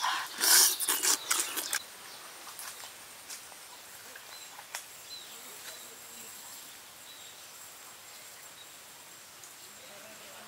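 Close-up eating sounds of a man chewing and sucking on cooked frog meat, loud and irregular, for about the first two seconds. Then quiet rural pond-side ambience: a faint steady high-pitched tone, a few soft bird chirps and occasional faint clicks.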